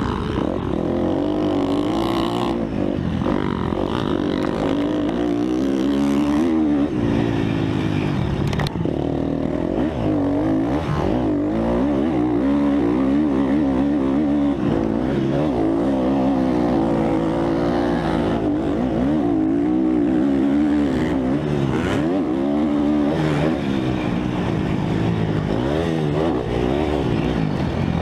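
On-board sound of a motocross dirt bike's engine, revving up and falling back over and over as the rider works the throttle and shifts around the track.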